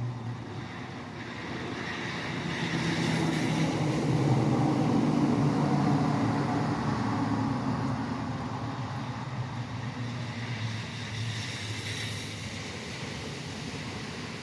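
A vehicle passing on a rain-wet highway: tyre hiss and a low engine hum swell up over a few seconds, peak about five seconds in, then slowly fade, over a steady background of rain.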